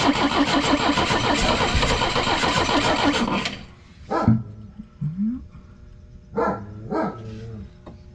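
1973 Pinzgauer's air-cooled four-cylinder petrol engine cranking over on its starter in an even, fast rhythm without catching, while fuel from the newly replaced pump is still filling the filter. The cranking stops about three and a half seconds in, followed by a few short loud sounds.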